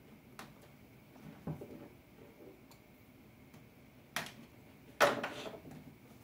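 Cardboard phone packaging being handled and opened: a few soft knocks and rustles, then a sharp click just after four seconds and a louder click with a short scraping rustle about a second later.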